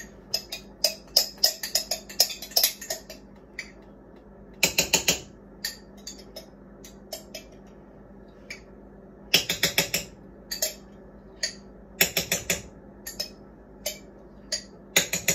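Sharp plastic clicks and taps in quick clusters of several each, from a small plastic container being handled and worked by hand, over a faint steady hum.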